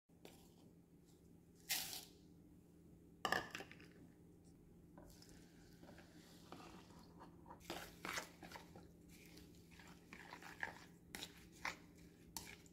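Quiet kitchen handling: milk poured onto dry rolled oats in a bowl, then a silicone spatula stirring and scraping the wet oats against the bowl in short strokes. Two louder crunching noises come in the first few seconds, over a faint steady hum.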